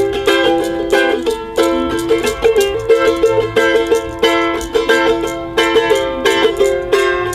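An acoustic guitar and a small ten-string instrument strummed together in a quick, steady rhythm, with no singing.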